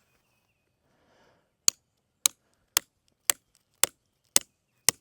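Mini sledge hammer striking the top of an electric poultry-netting fence post, driving it into hard ground. There are seven sharp strikes at a steady pace of about two a second, starting about a second and a half in.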